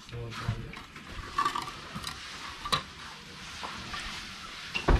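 Mason's trowel scraping and tapping cement mortar on concrete hollow blocks, with scattered clicks and a sharp thump near the end.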